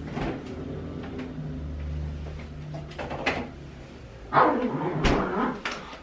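Dogs making vocal 'talking' noises, louder and more frequent from about four seconds in.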